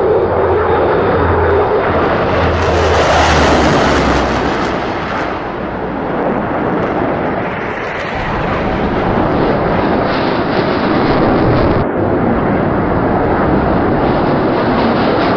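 Loud, steady engine noise of military aircraft landing and rolling on a runway: first a four-engine turboprop transport, later a jet. The sound changes abruptly about three times.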